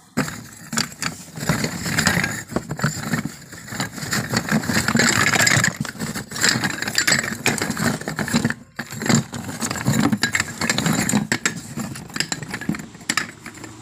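Small unglazed clay kulhad cups clattering and knocking against each other as they are rummaged through in a box, a dense run of clinks with a short pause about halfway.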